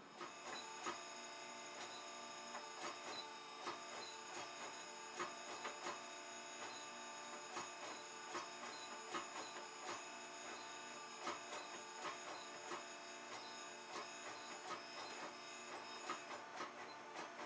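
50-ton hydraulic forging press at work, fitted with fullering dies and drawing out a taper on a hot 4140 tool-steel bar: a steady high-pitched whine from the running press, with frequent irregular sharp clicks over it.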